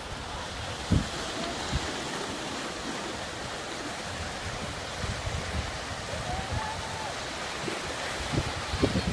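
Ocean surf washing on a beach as a steady rush of noise, with wind buffeting the microphone in low gusts, the strongest about a second in.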